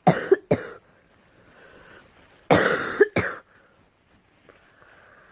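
A girl coughing: two sharp coughs right at the start, then after a pause of about two seconds, two more in quick succession.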